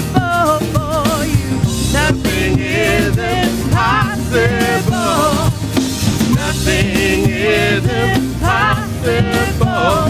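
Live worship band music with a drum kit and sustained bass, and a voice singing a wavering melodic line over it without clear words.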